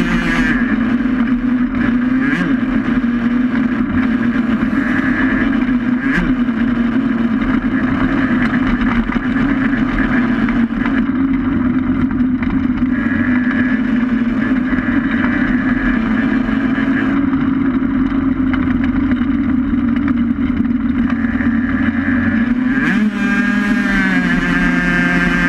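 Racing motorcycle engine running hard at steady high revs, heard from an onboard camera, its pitch wavering a little and shifting near the end.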